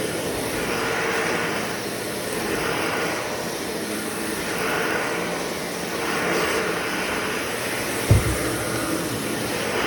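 Vacuum cleaner with a brushless motor running on a rug, its hiss swelling and fading about every two seconds as it is pushed back and forth. A single low thump about eight seconds in.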